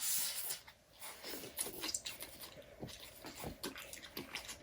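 People eating chow mein noodles quickly: a short hissing rush right at the start, then scattered small clicks and chewing sounds.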